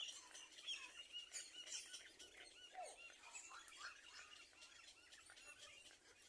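Faint, busy chirping of small birds: a run of short, high chirps with a lower falling call about three seconds in.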